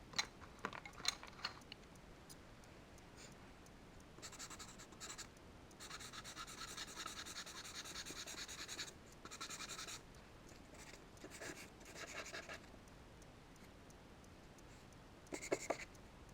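Charcoal scratching across paper in drawing strokes: a few short strokes, then a long stretch of steady scratching, then shorter strokes. A cluster of sharp taps near the end.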